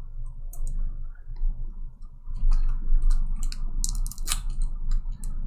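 Irregular light clicks and taps, with one sharper click about four seconds in, over a low steady hum.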